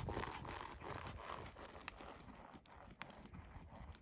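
Horse's hoofbeats on a sand arena as it trots, soft irregular thuds growing fainter as the horse moves away.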